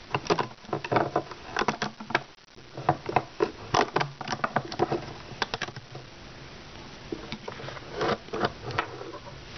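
Rubber bands being worked off a plastic Rainbow Loom with a hook: irregular clicks, taps and scrapes, busiest in the first six seconds and sparser after.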